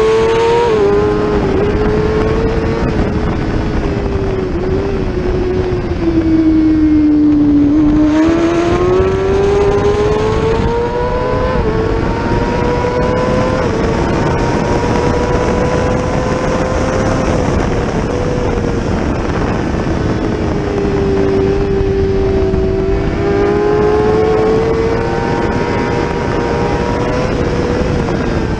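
600cc race motorcycle engine at high revs, heard from on board the bike. The revs sag for several seconds, then climb steeply with a quick upshift after about ten seconds. They dip once more past the middle and climb again in short steps near the end.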